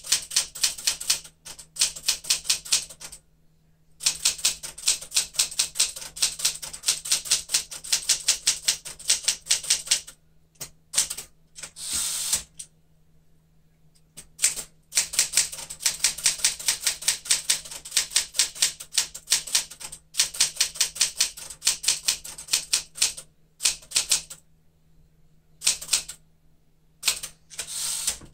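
A 1975 Smith-Corona Galaxie Twelve manual typewriter being typed on: runs of quick typebar strikes, several a second, broken by short pauses. A longer sliding sound about twelve seconds in and again near the end is the carriage being returned for a new line.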